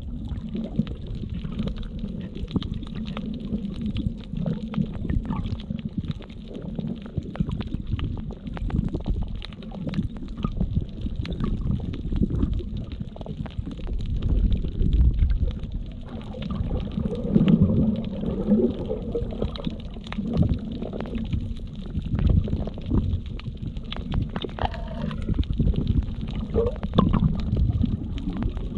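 Water sloshing and gurgling against a camera held underwater while snorkeling, heard as a muffled, low rumble that swells and fades, with scattered faint crackling clicks.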